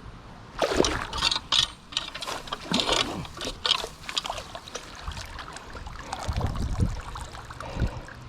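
Dip net being swept through creek water and lifted out, with irregular splashing, then water trickling and pouring from the mesh.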